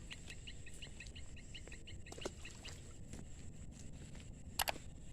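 Outdoor insect and bird ambience: a steady high-pitched drone with a run of quick chirps, about four or five a second, that stops about three seconds in. One sharp click or knock near the end.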